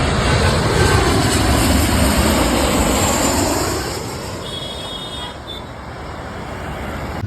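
Jet airliner passing low overhead on its landing approach, a loud roar that is strongest for the first few seconds and then fades.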